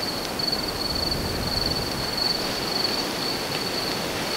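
A cricket trilling steadily on one high pitch over the even hiss of steady rain.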